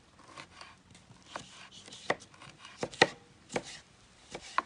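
Knife chopping pepper by hand: a series of irregular sharp knocks of the blade, the loudest near the middle.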